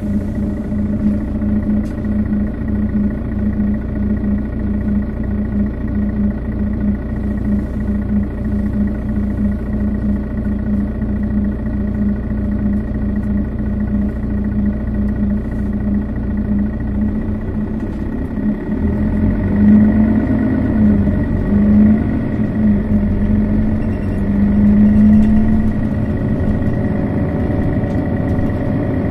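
Setra S415 NF low-floor city bus engine running steadily at a low idle-like speed. About two-thirds of the way through it pulls away: the engine note rises and eases back three times as the bus accelerates.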